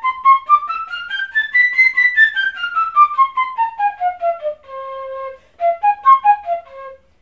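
Pífano, a wooden fife in C, playing a C major scale up two octaves and back down in quick tongued notes, about four a second. It holds the low C, then plays a short arpeggio up and back down to the low C.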